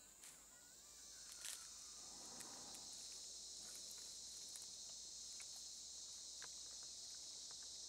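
Faint, steady, high-pitched insect chorus that swells up about a second in and holds, with a few faint clicks.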